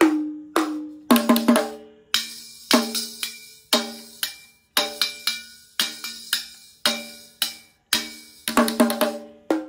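Toy drum set's plastic drums and small metal cymbal struck with plastic drumsticks in a loose, uneven beat: about one or two hits a second, with quick flurries about a second in and near the end. Each hit gives a short, tinny, pitched plastic ring with no depth; the cymbal sounds dull, which the owner puts down to the blue protective film still left on it.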